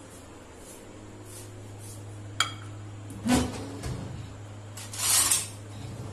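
Stainless-steel kitchen utensils handled on a stone counter: a sharp ringing metal clink, a couple of knocks, then a short scrape, over a low steady hum.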